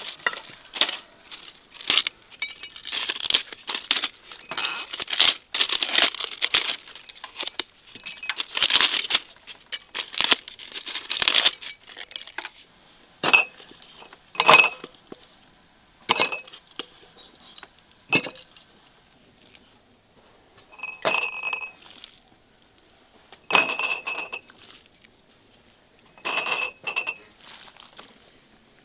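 Dried bay leaves snapped and crumbled by hand, a dense dry crackling for the first ten seconds or so. Then glass jars clinking about seven times, each with a short ringing tone, as the jars are handled and filled.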